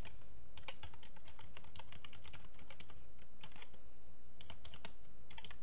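Typing on a computer keyboard: clusters of quick keystrokes with short pauses between them.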